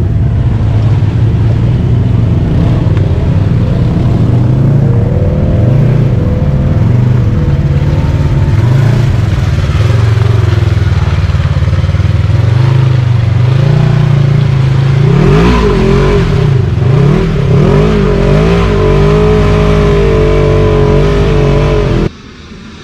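Can-Am Outlander XMR 850 four-wheeler's V-twin engine through a Looney Tune slip-on exhaust, loud and revving up and down under riding. It cuts off suddenly near the end.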